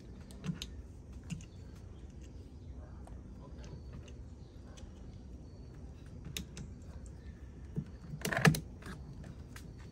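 Scattered light metal clicks of hose clamp pliers being fitted onto and working a spring hose clamp, with a louder clatter of clicks about eight and a half seconds in.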